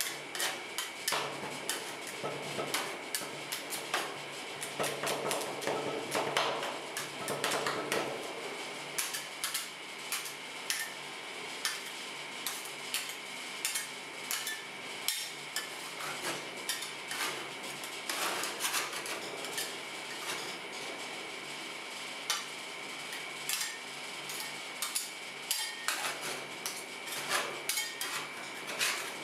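Two metal spatulas chopping and scraping rolled ice cream on a stainless steel cold plate: quick irregular clacks of the blades striking the steel, with scraping strokes between them.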